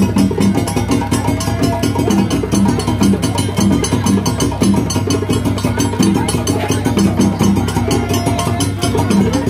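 West African hand-drum ensemble playing a fast, steady dance rhythm, with a repeating low pitched pattern over the beat.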